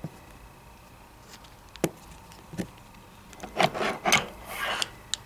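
Gears and small metal parts of a winch's gear train being worked loose and handled: scattered clicks and knocks with short scraping rubs, busiest from about three and a half to five seconds in.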